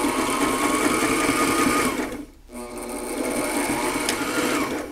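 Sailrite LS-1 walking foot sewing machine stitching cording in heavy corduroy, in two runs: it speeds up and runs steadily, stops briefly about two seconds in, then starts again and winds down near the end.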